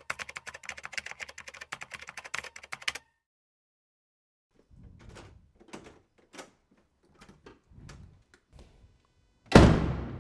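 Rapid clicking for about three seconds, then a pause and a few soft clicks and rustles. About nine and a half seconds in, a heavy wooden front door of a flat shuts with a loud thud.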